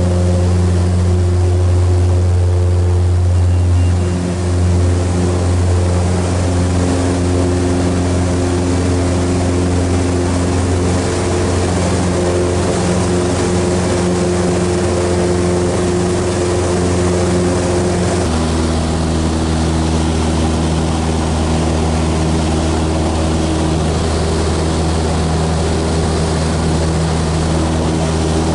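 Maule MX-7's engine and propeller running hard through the takeoff roll and climb, heard from inside the cabin as a loud, steady drone. About two-thirds of the way through the engine note drops abruptly to a slightly lower pitch.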